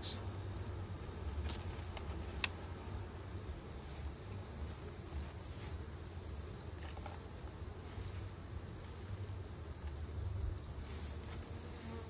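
Insects trilling steadily in the grass, one constant high-pitched note, over a low rumble, with a single sharp click about two and a half seconds in.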